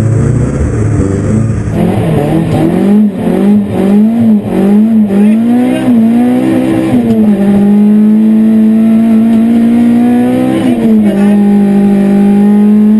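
Opel Astra GSI 16V rally car's 2.0-litre 16-valve four-cylinder engine at full effort, heard first briefly from outside as the car slides through a corner, then inside the cabin. The revs surge up and down in quick bursts coming out of the corner, then hold high and steady on the straight, with a short dip about eleven seconds in.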